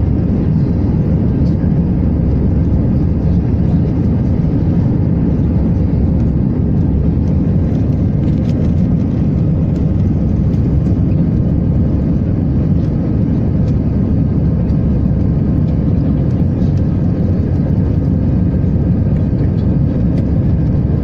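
Aircraft engines running steadily: a loud, even low rumble with a faint steady hum on top, unchanging throughout.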